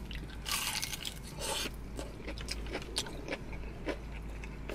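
Close-up eating sounds: two short crisp bites into fried chicken wings about half a second and a second and a half in, then chewing and small wet mouth clicks.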